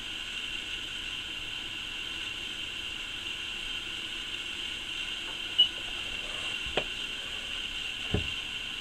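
Rigol DS2000-series digital oscilloscope's cooling fan running, a steady whirring hiss. A few short clicks and knocks come in the last few seconds.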